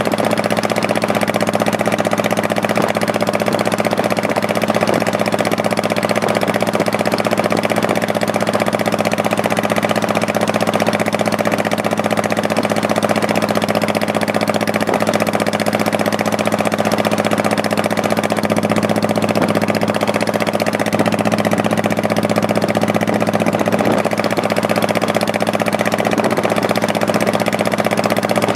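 Honda Shadow Spirit 1100's V-twin engine running steadily at constant revs, with no change in pitch or loudness.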